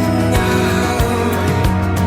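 Instrumental background music with held bass notes and a steady drum beat of about three hits a second, with a cymbal wash about half a second in.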